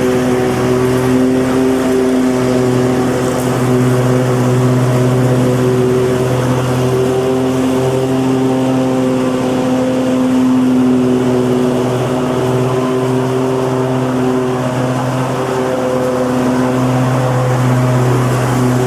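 Lawn mower engine running steadily at a constant speed, a continuous even drone.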